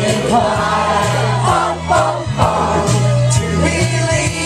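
Dance music played loud by a DJ, with sung vocals over a bass line held in long, steady notes.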